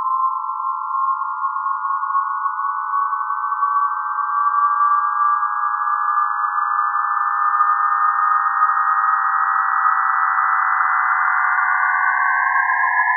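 Synthesized sine tones sonifying a logistic map orbit: a cluster of close pure pitches near 1 kHz drifts slowly apart. Near the end they split into two tones, one rising and one falling, as the orbit settles into a two-point cycle.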